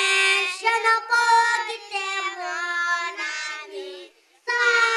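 Young children singing a song together into handheld microphones, in long held notes. The singing breaks off briefly about four seconds in, then the next line starts.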